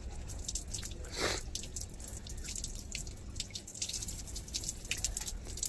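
Water from an open wall tap splashing and dripping onto a concrete floor as a man rinses his hair under it with cupped hands, in many small irregular splats, with one louder splash about a second in.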